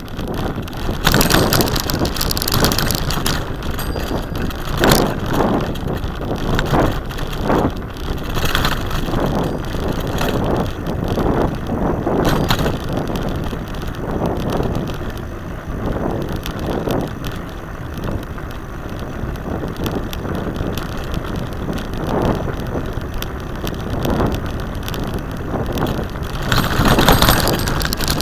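Bicycle ridden along a rough dirt track: steady tyre and road noise with frequent irregular knocks and rattles as the bike jolts over bumps.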